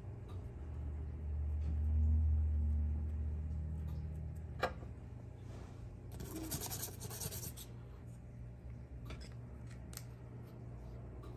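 Small artist's paintbrush scratching and dabbing on a cardboard paint palette, with a few light clicks. A low rumble runs through the first few seconds, and a sharp click comes near the middle.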